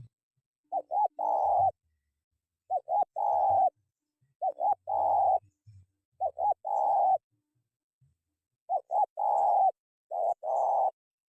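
Spotted dove (tekukur) cooing in repeated phrases, each two short notes followed by a longer, rolling coo. Six phrases come about every one and a half to two seconds.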